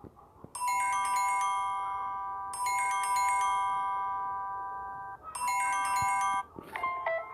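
Samsung Galaxy J2 Prime built-in alert tone: a bell-like chime of several ringing notes, struck three times about two seconds apart, each strike fading away. Near the end a different, quicker run of notes begins.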